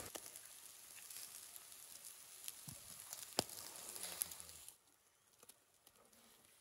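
Beef liver and lamb-tail fat kebabs sizzling over hot charcoal, a steady hiss with scattered crackles and pops. It drops quieter about three-quarters of the way through.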